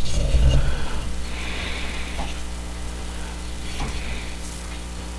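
Steady low hum with a few faint, soft handling sounds, loudest about half a second in.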